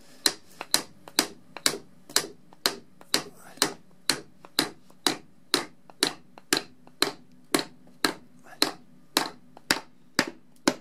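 Club hammer repeatedly striking the head of a hammer-in plug fixing, driving it through a timber batten into a drilled hole in the wall: a steady run of sharp knocks, about two a second.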